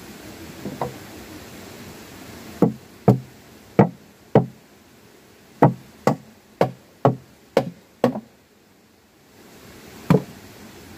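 A series of sharp knocks on something solid. Two faint ones come first, then about ten loud blows roughly half a second apart with short breaks, and a single last knock after a pause near the end. They play over a steady background hiss.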